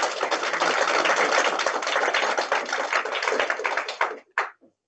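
A small group applauding: a dense run of quick hand claps that cuts off abruptly near the end.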